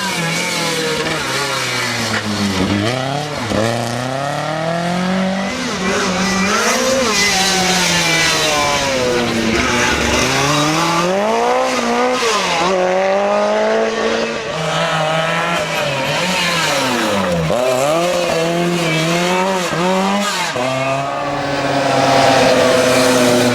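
Lancia 037 rally car's supercharged four-cylinder engine at full throttle, its pitch rising again and again through the gears and dropping sharply on each shift or lift-off.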